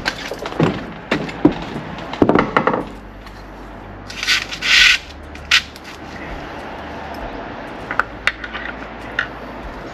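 Footsteps thudding on wooden scaffold planks, then plastic insulation fixings rubbing and clicking as they are pushed into drilled holes in EPS insulation board, with a short scraping rub about four seconds in and a few light clicks near the end.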